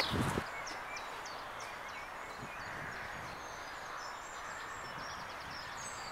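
Small birds chirping in short, high calls over a steady background hiss, with a low thump at the very start.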